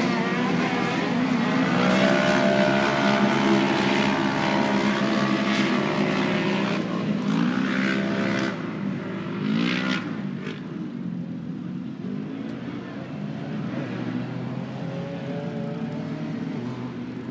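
Off-road race vehicle engines revving hard, their pitch climbing and dropping as they accelerate and lift off, with more than one engine heard at once. The running is loudest over the first ten seconds or so, with sharp climbs in pitch about two seconds in and again around seven and ten seconds, then it settles lower and quieter.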